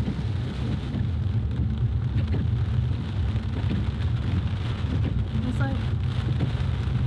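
Inside a BMW car driving slowly on a wet road: a steady low rumble of engine and tyres, with rain hitting the windscreen and the wipers running.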